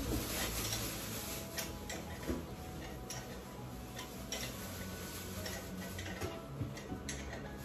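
Scattered light clicks and taps from hand-tool work on a wall, the sharpest about two seconds in, over a low steady room background.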